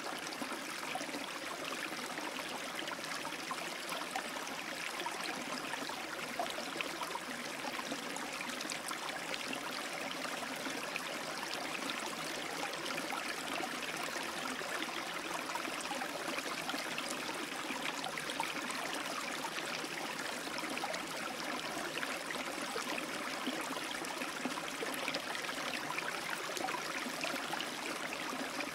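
Aquarium filter running: a steady rush of moving water with a fine crackle throughout.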